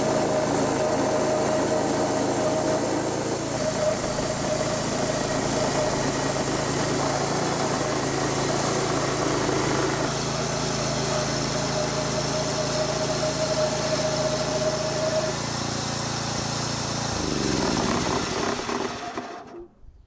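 Homemade band sawmill cutting through a log: its 6.5-horsepower gas engine runs steadily at speed as the band blade rips the wood, with a thin high whine over the engine for most of the cut. Near the end the engine slows and winds down to a stop.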